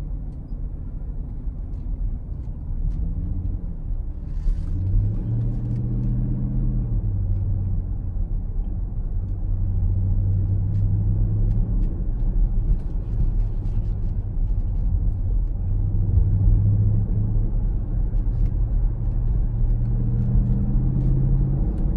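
Dodge Durango SRT's 6.4-litre HEMI V8 running at low speed in traffic over steady road rumble, heard from inside the cabin. The engine's pitch rises about four seconds in, eases back a couple of seconds later, and climbs again near the end as the speed changes.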